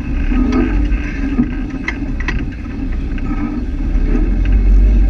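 Off-road 4x4's engine running low and steady as the vehicle crawls along a muddy trail, with a few sharp clicks about two seconds in; the low rumble grows louder near the end.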